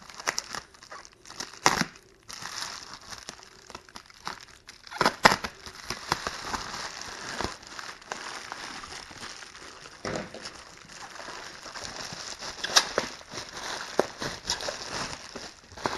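Bubble wrap and packaging being unwrapped by hand: plastic crinkling and rustling, with scattered sharp crackles.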